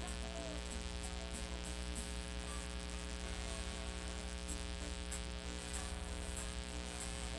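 Steady electrical mains hum with a faint buzz, from an amplified sound system.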